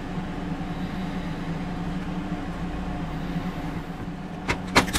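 Steady low hum with a few fixed tones, like a room fan or appliance, under quiet Play-Doh handling. Near the end come a few sharp clicks.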